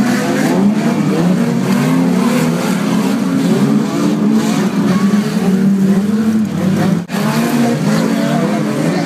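A pack of Unlimited banger racing cars' engines running and revving as they race past, several engine notes overlapping and rising and falling.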